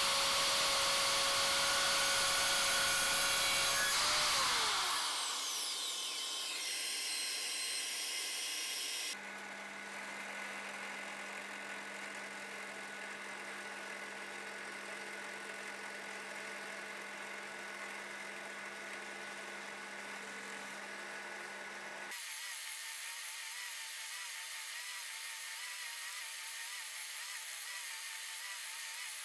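Evolution mitre saw running as it cuts a wood-and-resin offcut, then winding down with a falling whine about four seconds in. From about nine seconds a drill press runs steadily while drilling into the small blank. From about twenty-two seconds a Triton belt sander runs with a slightly wavering hum as the blank is shaped against the belt.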